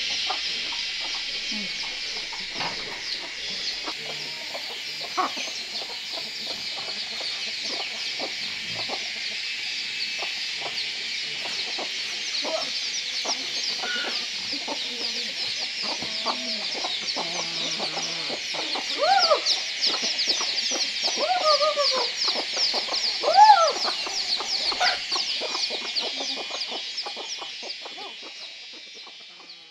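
Chickens clucking, with a few louder calls about two-thirds of the way in, over a steady high-pitched buzzing background; it all fades out near the end.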